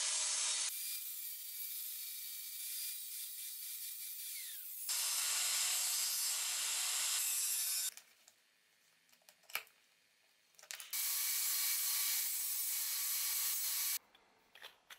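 Electric grinders cutting and grinding a steel threaded bolt: a steady, high-pitched grinding noise in three stretches, the first ending in a falling whine. Between the stretches come a few light taps and scrapes.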